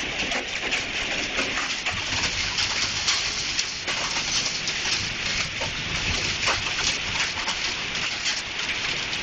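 A hailstorm: a dense, steady clatter of hailstones pelting the ground and surfaces, with many separate sharp hits.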